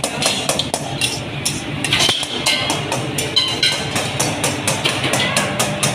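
Music with a steady percussive beat, several sharp strikes a second, and short high melodic notes over it.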